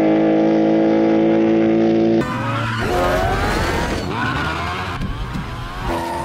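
Race car engines from film soundtracks: a steady, held engine note for about two seconds, then a sudden switch to engines revving with pitch rising and falling, along with tyre squeal.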